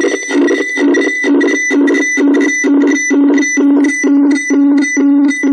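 Pulsing electronic buzz from a Bluetooth speaker amplifying a phone's microphone, with three wireless devices held together beside it. A steady buzzing tone switches on and off about twice a second. The owner takes it for the electromagnetic and microwave emissions of the devices.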